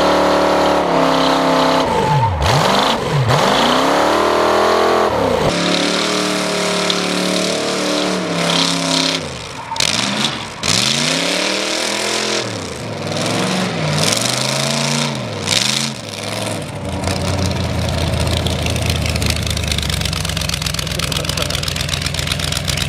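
1965 Chevy C10 rat rod's 400 small-block V8 during a burnout. It is held at high revs at first, then revved up and down repeatedly in deep drops and climbs of pitch. In the last several seconds it settles to a lower, steady rumble.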